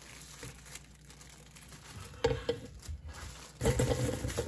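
A plastic produce bag crinkling as it is handled and opened, then baby potatoes tumbling out of it into an enamel colander near the end in a quick run of knocks and clatter.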